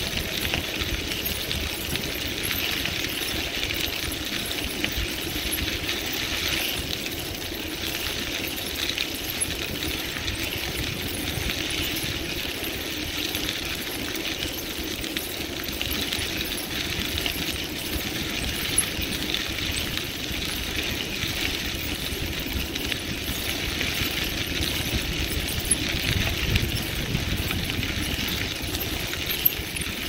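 Bicycle rolling steadily along a crushed-stone rail trail: constant crunching of the tyres on the gravel with light rattling, and a few sharper ticks.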